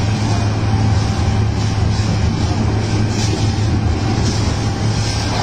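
Steady low rumble with an even hiss over it: a fire hose jetting water onto a burning building, with an engine-driven pump running.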